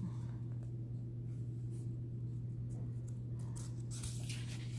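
Paper rustling as the pages of a tarot deck's guidebook are handled and turned, with the clearest rustles near the end, over a steady low hum.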